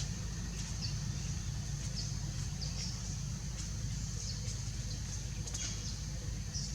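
Outdoor ambience: a steady high drone with short high chirps every second or so, over a low steady rumble.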